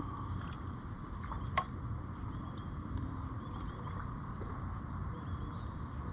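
Steady low rumble of wind and water noise around a kayak on the microphone, with a couple of light clicks about a second and a half in and faint high chirps.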